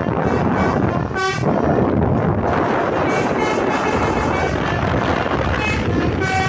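Truck's telolet horn, a multi-tone musical air horn, giving short tooting notes over a steady loud rumble of vehicle noise. One strong note comes about a second in, and shorter, fainter notes follow through the second half.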